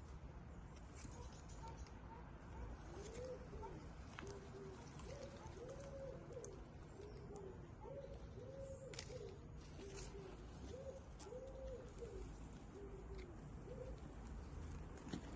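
A bird cooing: a run of short, low notes, each rising then falling, from about three seconds in until near the end, over a faint low background rumble.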